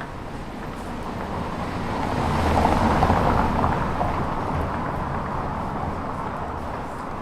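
City street traffic: a motor vehicle drives past, its engine and tyre noise swelling to a peak about three seconds in and then fading, over a steady background of traffic noise.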